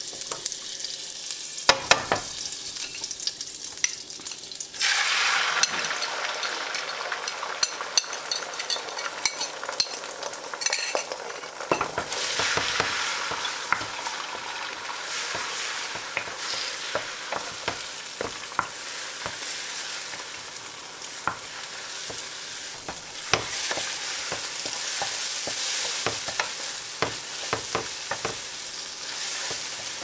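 Butter sizzling in a hot nonstick frying pan, then a much louder sizzle about five seconds in as beaten eggs hit the pan. The eggs keep sizzling while a spatula stirs and scrapes them into scrambled eggs, with many light scrapes and taps against the pan.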